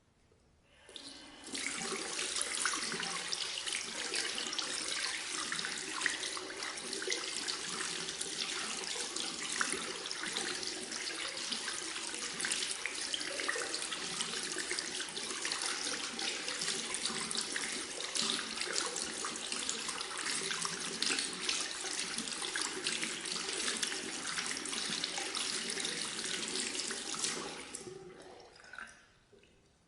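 Hands being washed under a running tap, water splashing steadily into a sink with irregular spatters as the hands move in the stream. It starts about a second in and fades out near the end.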